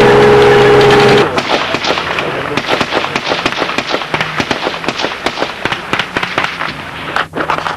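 A vehicle engine running loud for about the first second, then rapid, irregular cracks of small-arms gunfire, several shots a second and varying in loudness, with the engine still running low underneath.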